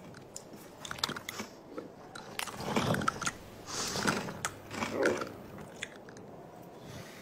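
Cartoon camel chewing with its mouth full, making crunchy, wet chewing sounds. A few short clicks come about a second in, followed by three louder bouts of chewing.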